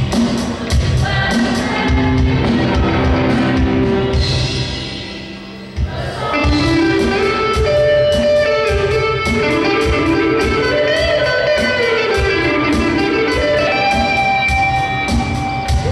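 Live band music: electric guitar over a drum kit keeping a steady beat. The music thins out briefly about four to six seconds in, then picks up again with voices singing over the guitar and drums.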